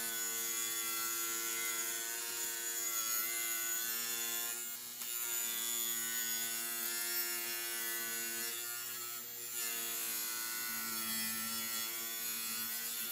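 Table saw running and ripping a salvaged wooden trim board lengthwise to width: a steady motor-and-blade hum that wavers a few times as the blade cuts through the wood.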